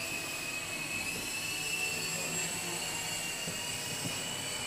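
Blade mCX micro coaxial RC helicopter in flight: the steady high-pitched whine of its small electric motors and rotors, drifting slightly in pitch.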